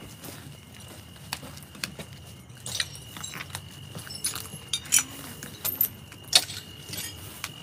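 Keys jangling in short, irregular clinks as someone walks, the loudest clink about six seconds in.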